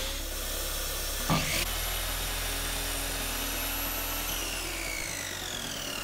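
Parkside wet & dry shop vacuum switched on and running. About a second and a half in, an Einhell miter saw starts and makes a test cut through scrap wood. From about four seconds in, the saw motor winds down, its whine falling in pitch.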